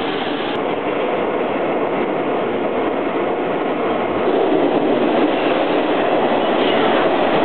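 New York City subway train on the B line running: a steady noise of wheels on track that grows louder about four seconds in.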